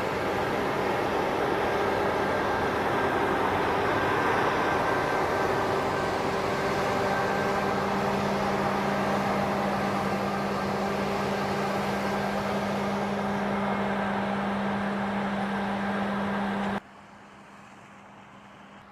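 John Deere X9 1100 combine harvester running under load: a steady machinery drone with a constant low hum. It cuts off abruptly near the end.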